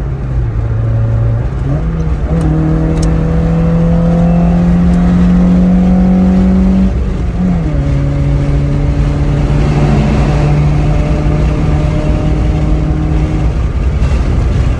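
Car engine accelerating hard: the engine note climbs steadily for several seconds, drops sharply about seven seconds in as the transmission shifts up, then runs steadier at the higher speed.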